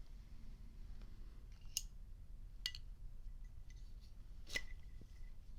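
Three small, sharp metallic clicks from a Zippo Slim lighter's metal case being handled. The third click, near the end, has a brief faint ring.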